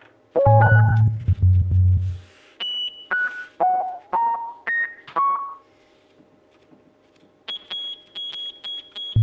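Electronic improvised music. First comes a low humming drone, then a run of short pitched beeps that jump between high and low notes. After a brief lull, a steady high beeping tone begins with a regular ticking about three times a second.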